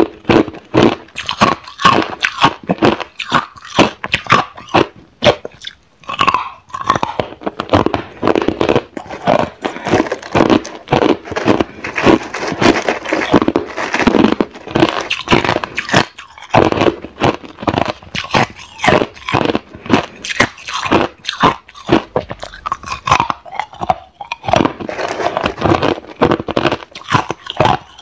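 Hard clear ice being bitten and chewed close to a lapel microphone: a dense run of sharp, crackling crunches with a few short pauses.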